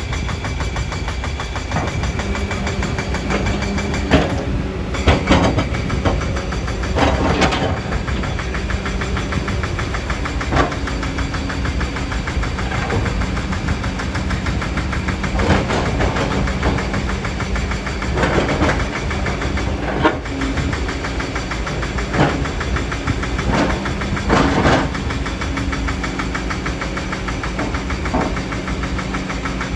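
Kobelco excavator's diesel engine running steadily, with a sharp knock or scrape every few seconds as the bucket works into the hillside.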